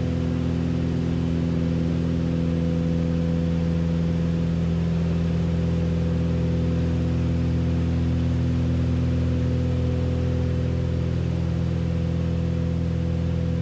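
Twin six-cylinder piston engines and propellers of a Beechcraft Baron B55 in flight, heard from inside the cabin as a steady, unchanging drone.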